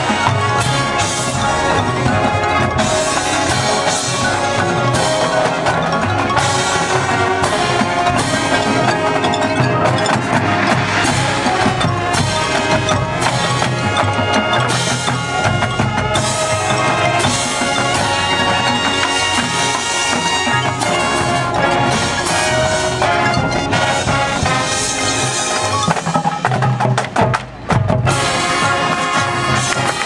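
Marching band playing its field show: brass and drum line with mallet percussion from the front ensemble. The music breaks off for a moment near the end, then comes back in loud.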